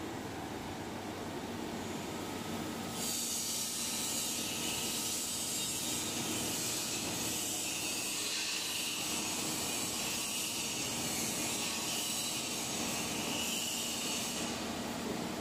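Tube ice machine with a 15 HP Bitzer piston compressor running steadily, a mechanical hum with a constant hiss. The hiss grows stronger about three seconds in and drops back near the end.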